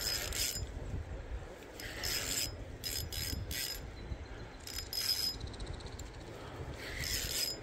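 Fishing reel in use while a big hooked fish is being played: about six short whirring bursts, with a run of fast, even clicks a little past the middle.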